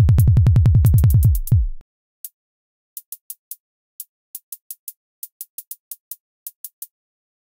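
Electronic drum-machine beat: a fast run of deep bass thumps, about eight a second, that stops under two seconds in, followed by short sharp high ticks in a stuttering, uneven rhythm.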